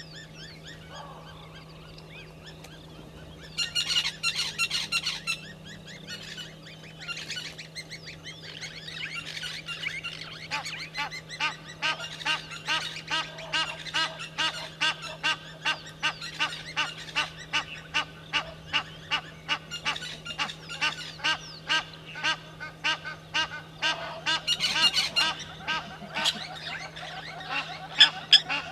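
Blacksmith lapwings calling: sharp, metallic notes repeated about twice a second in a long run from about ten seconds in, with dense flurries of calls about four seconds in and again near the end.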